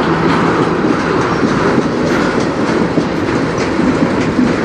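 Freight cars of a manifest train rolling past, wheels clacking over the rail joints with a steady rumble and rattle.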